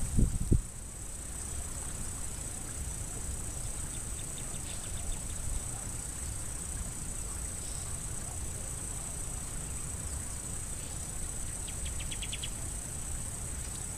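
A steady, high-pitched drone of insects, with a low rumble beneath it. A few low thumps of the camera being handled come in the first half second, and a brief burst of rapid ticking comes near the end.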